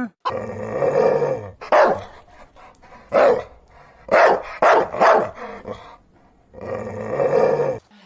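Dog barking: a longer bark at the start, then several short, sharp barks, and another longer bark near the end.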